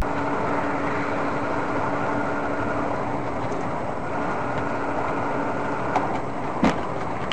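Steady engine and tyre noise of a car cruising on the highway, heard from inside the cabin, with a steady hum. Two short knocks come near the end.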